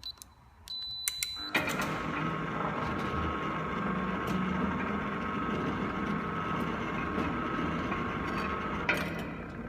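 Wireless keypad keys pressed with a short beep, then a sliding gate opener's electric motor starts and runs steadily with a gear whine. Near the end there is a click and the running goes quieter.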